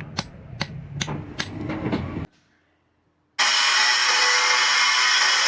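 Forging hammer striking metal, ringing blows at about three a second, stopping about two seconds in. After a second of near silence, a loud steady rushing noise from a machine starts abruptly.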